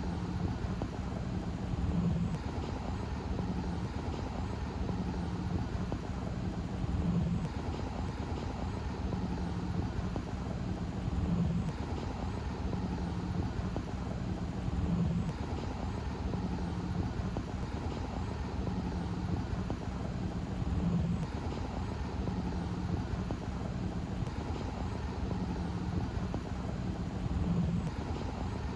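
Outdoor car-show ambience: a steady low rumble of running vehicles, swelling briefly every few seconds.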